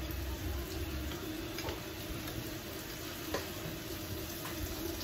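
Butter melting in a heating frying pan: a faint, steady sizzle with a few small ticks.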